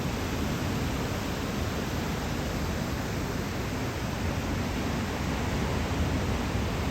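Steady roar of breaking ocean surf from a typhoon swell, an even wash of noise with no distinct individual wave crashes.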